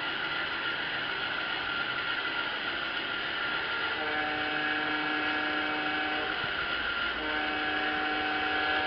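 G-scale model SD45 diesel locomotive running on garden track with a steady motor-and-wheel running noise. Its onboard sound system sounds the horn twice: a long blast about four seconds in and a shorter one about seven seconds in.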